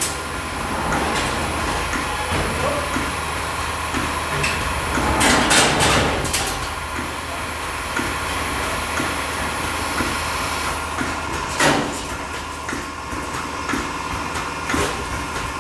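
Milking-shed machinery running with a steady hum and a steady higher tone, broken by a few sharp knocks: a cluster about five to six seconds in, then single ones near twelve and fifteen seconds.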